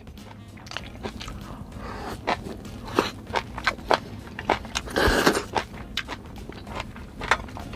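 Close-up chewing and biting of grilled beef intestines, wet mouth clicks and smacks again and again, with a longer, louder burst of noise about five seconds in.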